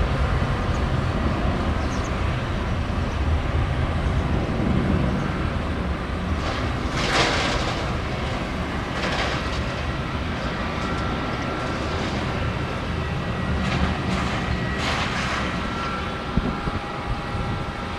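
Airbus A330 jet engines at takeoff thrust during the takeoff roll: a steady rushing noise, with a few brief swells of hiss partway through.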